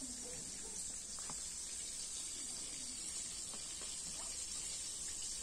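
A faint, steady high-pitched hiss with a few soft ticks scattered through it.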